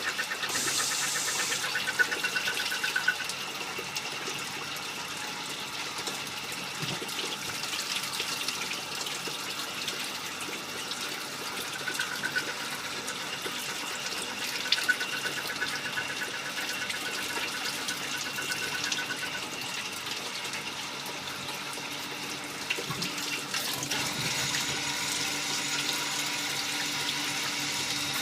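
Small-diameter automatic lathe running, with a steady rush like running liquid, a thin high machine tone and a few sharp clicks. The hiss grows brighter near the end.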